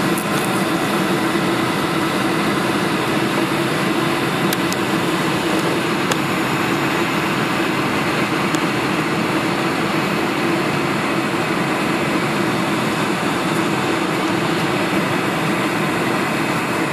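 Steady jet engine and airflow noise inside the passenger cabin of a four-engine KLM Boeing 747 with General Electric turbofans, on approach to landing.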